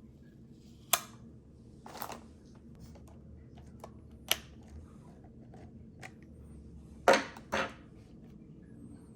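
Handling of the unboxed drone gear and its packaging: a sharp click about a second in, a short rustle around two seconds, another click a little past four seconds, then a loud click followed by a rustle near seven seconds.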